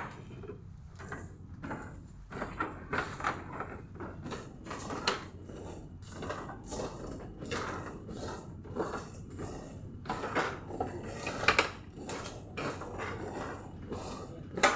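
Irregular clattering and knocking of feeding equipment in a closed-house broiler shed, over a steady low hum.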